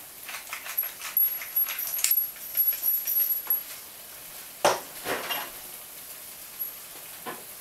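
Wooden pepper mill grinding black pepper over a frying pan, a quick run of small crunching clicks for about three seconds. About a second later there is one louder knock as the mill is set down on the worktop.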